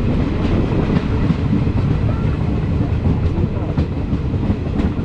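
Passenger train running on the rails, heard from aboard: a steady low rumble of the coach with occasional faint clicks from the wheels.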